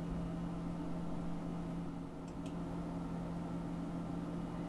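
Steady low background hum with a faint hiss, and two faint ticks about two seconds in.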